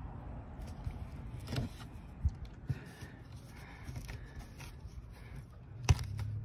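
Fingers pressing and rubbing a freshly glued canvas patch onto tent canvas, checking the adhesive bond: faint scrapes and a few light taps over a low steady rumble, with one sharp click near the end.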